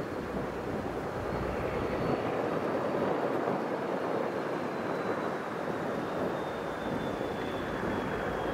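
Diesel locomotive running, a steady engine noise with a faint high whine that slides slowly down in pitch.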